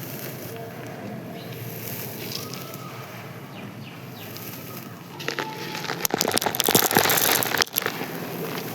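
Dry, crusted sand being crushed and crumbled: a dense crackling crunch that starts about five seconds in, after a stretch of faint background noise.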